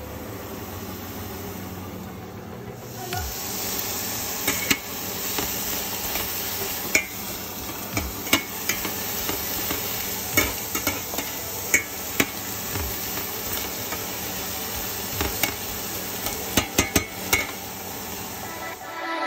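Bell pepper and onion strips sizzling in a stainless steel frying pan, the steady hiss starting about three seconds in. A slotted metal spatula stirs them, clicking and scraping sharply against the pan many times.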